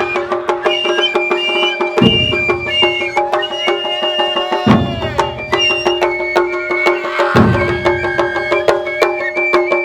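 Japanese traditional festival music played by a drum troupe. Rapid clicking percussion runs over a steady low tone and a high melody held in stepped notes, with a heavy low taiko strike about every two and a half seconds.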